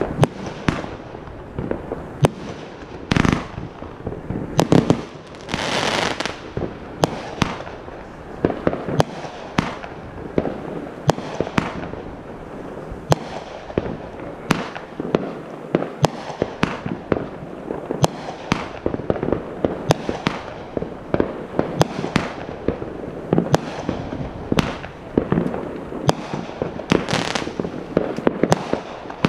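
Consumer fireworks going off in a rapid, continuous barrage: many sharp bangs in quick succession from shells launching and bursting, with crackling between them. There are a couple of longer, noisier bursts, one about six seconds in and one near the end.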